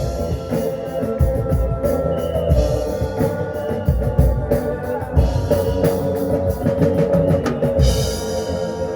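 Rock band playing an instrumental passage: a drum kit with kick drum, snare and cymbals under sustained chords, with no singing. A cymbal wash swells near the end.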